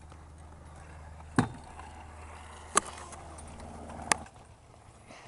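Stunt scooter rolling on skatepark concrete with a steady low rumble, and three sharp clacks about a second and a half apart as the scooter hits the concrete. The rumble stops about four seconds in.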